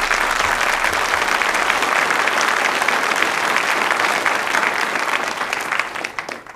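Studio audience applauding, the clapping dying away near the end.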